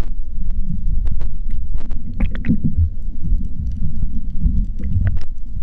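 Muffled underwater rumble heard through a GoPro's waterproof housing, with scattered clicks and crackles. It swells a little about three seconds in and again near the end.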